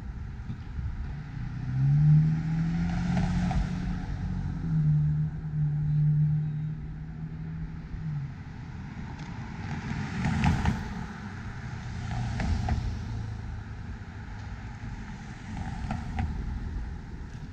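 Cars driving through a street intersection one after another. One engine note rises and then holds steady for several seconds, and tyre noise swells as each vehicle passes, loudest about ten seconds in.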